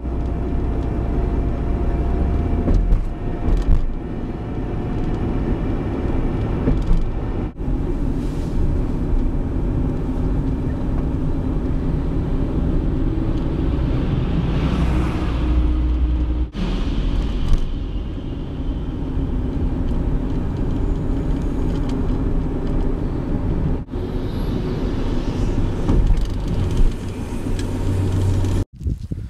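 Chevrolet Venture minivan driving over rough ground: a steady, loud engine and road rumble. It breaks off abruptly several times where the footage is cut.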